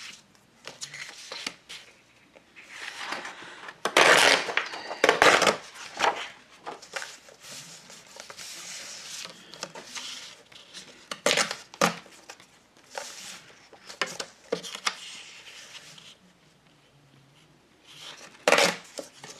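Paper being handled and torn against a scalloped-edge tearing ruler: several short, loud rustling and tearing noises, mixed with hard knocks as the ruler is set down and shifted on the table.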